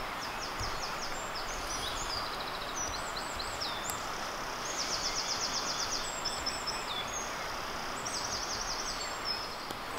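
A songbird singing in a woodland, a series of rapid high trills and chirps, over a steady background hiss.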